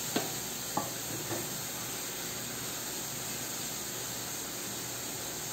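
Three light knocks in the first second and a half, from a glass cup as it is tipped to empty wheat flour into a baking dish, over a steady background hiss.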